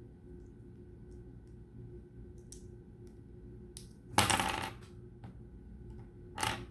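Loose plastic LEGO pieces clattering against each other as they are sifted by hand. There are a few small clicks, then a loud clatter about four seconds in and a shorter one near the end.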